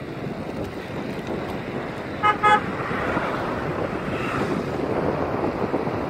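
Motor scooter horn giving two short beeps a little over two seconds in, over steady wind rushing across the microphone of a moving bicycle.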